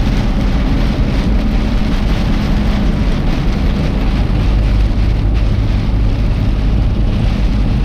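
Steady road and engine drone inside a moving truck's cabin, with rain on the truck.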